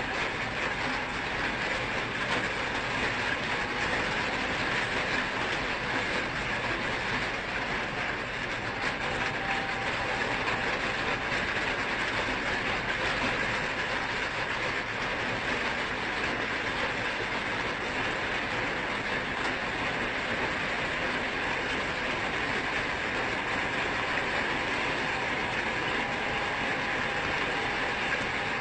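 Heavy rain falling on a flooded street: a steady, even hiss of rain on standing water.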